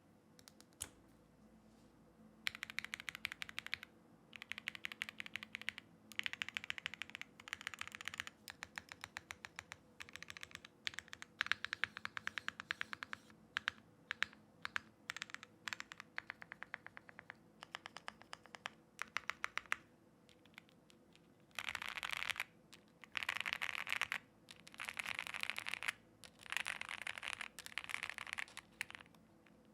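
Typing on a custom mechanical keyboard with lubed Gateron Black Ink V2 linear switches on a POM plate and GMK keycaps: runs of rapid keystrokes separated by short pauses. The runs grow denser and faster in the last third.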